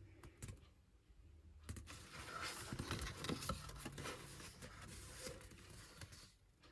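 Light rustling and crinkling of packaging being handled and opened, with a few soft clicks and taps near the start. The rustling picks up about two seconds in and fades out shortly before the end.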